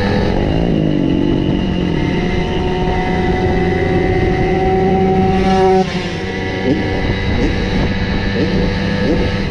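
Several Simson single-cylinder two-stroke moped engines running together. One engine's pitch falls at the start, climbs through the middle and drops off abruptly about six seconds in, followed by several short quick rises in pitch.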